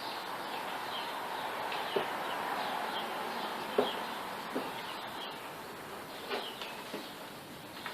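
A handful of light plastic clicks and knocks as shop vac accessory nozzles are pushed onto the holder on the vacuum's wand, heard over a steady background hiss.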